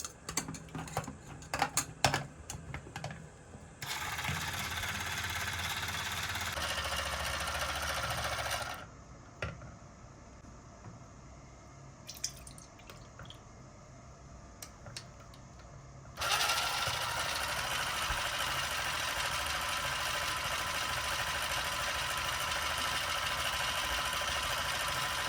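Clicks of plastic parts being handled, then a small battery-powered toy kitchen appliance motor running steadily for about five seconds, and running again from about two-thirds of the way through to the end.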